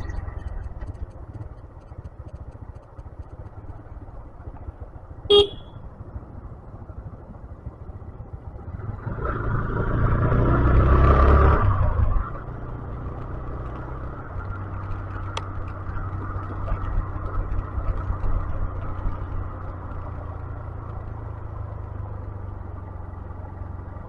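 125cc motorcycle running steadily on a hill road, with engine and wind rumble throughout. A short horn toot sounds about five seconds in, and a louder swell of vehicle noise with a held horn-like tone builds near the middle for about three seconds before cutting off sharply.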